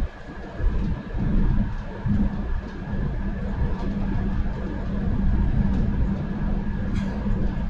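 Electric commuter train running along the line: a steady low rumble with a constant whine over it and a few light clicks.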